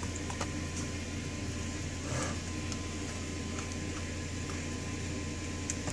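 Steady low hum of a running kitchen appliance, with a few faint clicks and scrapes of a spoon against a stainless-steel mixing bowl as cookie dough is scooped out.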